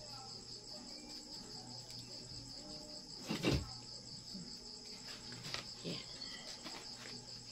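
Crickets chirping steadily in a fast, even pulse, with one short thump about three and a half seconds in.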